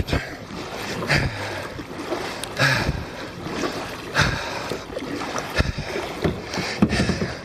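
Kayak paddle strokes splashing into lake water, alternating sides at about one stroke every second and a half, with water washing against the kayak's hull.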